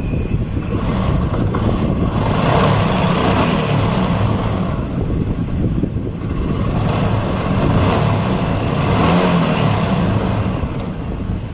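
Honda XRM125 motorcycle's single-cylinder engine running and revved up twice, with a newly fitted timing chain tensioner mechanism; it runs without the earlier strange rattle from the engine.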